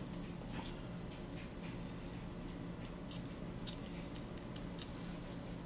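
Aluminum foil, stiff with hardened candle wax, crinkling in short, faint crackles as it is peeled off a small glass vial by hand. A steady low hum runs underneath.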